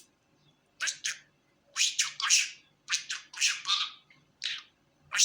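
Pet budgerigar giving short, harsh chirps and squawks in quick clusters of two or three, with brief pauses between them.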